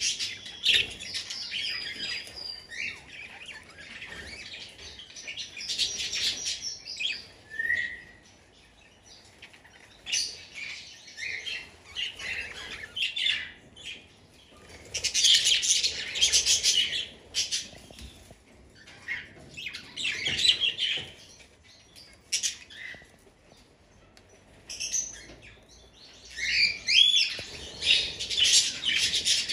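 Budgerigars chattering and chirping in irregular bursts of warbling with short quieter gaps. The chatter grows busier near the end.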